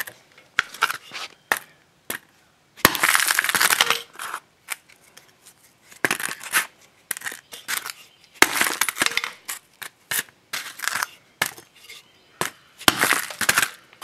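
Hammer blows crushing the plastic housing of a washing machine solenoid coil. There are four bursts of crunching with single knocks between them, as the casing breaks apart to free the copper winding.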